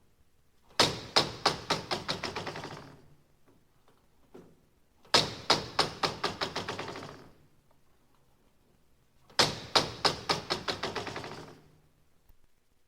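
A hard object falling and bouncing to rest, three times over: each fall starts with a loud knock followed by a run of quicker, fainter knocks as it settles.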